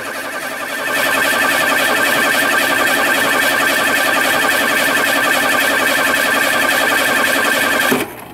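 1982 Ford F-100's 232 cu in (3.8 L) V6 being cranked over by its starter without firing: a steady, fast-pulsing starter whine that rises about a second in and cuts off suddenly near the end. The owner blames the no-start on a gas leak at the freshly rebuilt 2150 carburettor.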